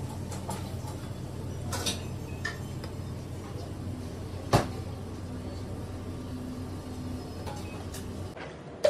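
A few short clicks and knocks of kitchen utensils, a knife on a clay dish and worktop, over a steady low hum, with one sharp knock about four and a half seconds in.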